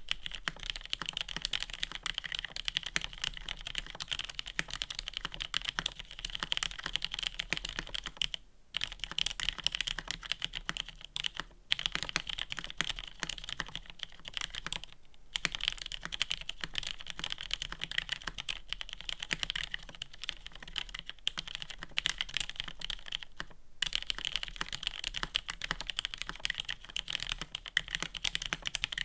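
Steady typing on an Exclusive E8.5 mechanical keyboard: polycarbonate case and plate, gasket mount, Cherry MX Black linear switches lubed and filmed, GMK keycaps. The keystrokes come fast and dense and stop briefly four times.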